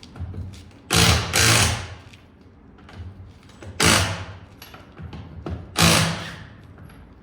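Impact wrench rattling in three short bursts, the first one doubled, as it loosens the front wheel bolts.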